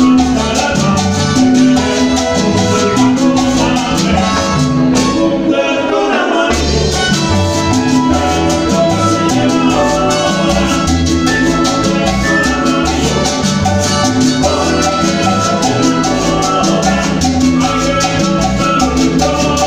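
Live Latin tropical dance band playing loudly over a PA, with a steady beat, percussion and sung vocals; the beat briefly drops out about five seconds in before the band comes back in.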